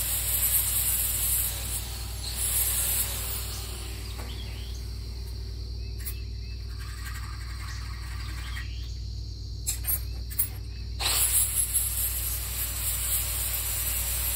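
Angle grinder with a flap disc buffing the edges of plasma-cut steel letters, a steady hissing grind. The grinding drops away about four seconds in, a few light clicks of handling follow, and it starts again about eleven seconds in.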